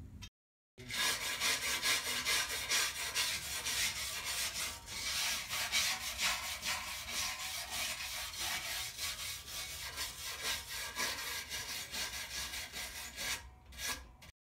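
Hand ratchet wrench rasping rapidly as it is worked back and forth on the bolts holding the cutting edge to a plow moldboard. It starts shortly after a brief silence and stops just before the end.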